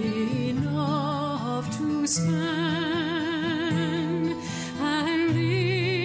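Background music: a melody in long notes held with vibrato, over steady low bass notes.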